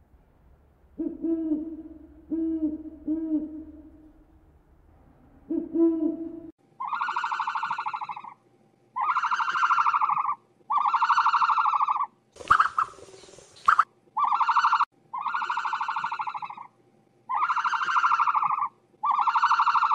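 A large horned owl hooting, a run of deep hoots in the first six seconds or so. After a sudden change, a loud buzzy animal call repeats about every two seconds, each call held for over a second, broken once by a short noisy burst.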